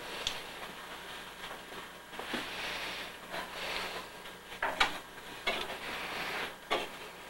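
A hand patting and pressing chicken into a steel pan of dry breadcrumbs, making short patches of gritty rustling, with a few sharp clicks in the second half.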